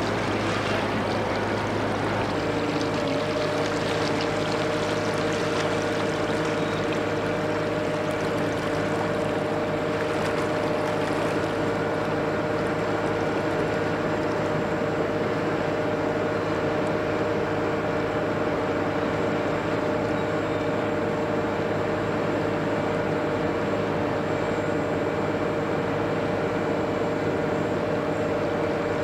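Steady engine drone with a constant low hum; about two seconds in, a pair of higher steady tones joins it and holds.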